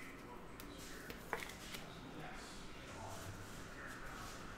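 Quiet handling of trading cards and a clear plastic card holder, with a few soft clicks, over faint room tone.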